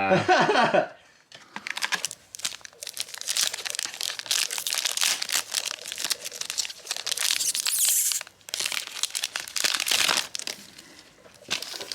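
Foil booster pack wrapper being torn open and crinkled in the hands: a dense run of crackling rustles starting about a second and a half in and dying away near the end.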